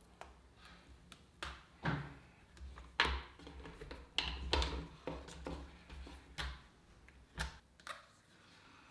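Hands handling a Philips Hue LED light strip and its plastic cable: faint, irregular light clicks, taps and short plastic rustles.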